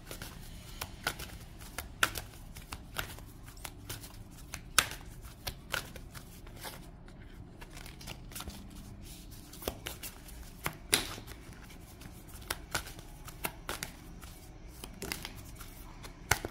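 A thick deck of large glossy oracle cards being shuffled by hand, the cards snapping and slapping against each other in irregular bursts, with a few louder snaps.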